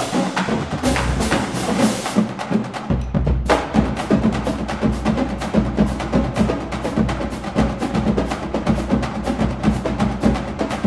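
Drum-heavy percussion music with a dense, steady beat of rapid strikes. The high end drops out briefly about three seconds in.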